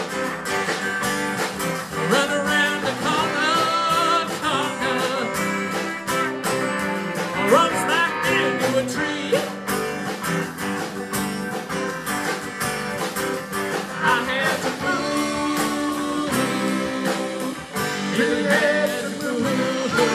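Music: a guitar-led song with a singing voice.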